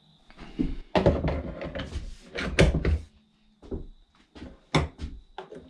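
Plastic knocks, scrapes and clicks from a battery backpack sprayer's battery and battery compartment door being handled. A busy cluster of knocks and rustling comes first, loudest about two and a half seconds in, followed by a few separate sharp clicks.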